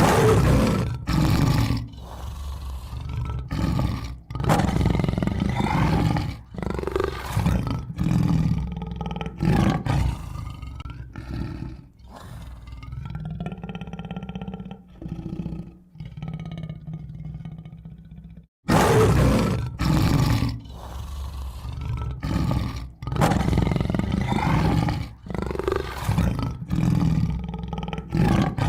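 Tiger roaring and growling: a series of loud roars and snarls of varying length. About two-thirds of the way through there is a brief break, after which the sequence starts over.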